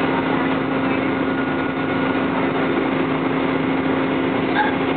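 A bus engine running, heard inside the cabin: a steady drone with a constant low hum.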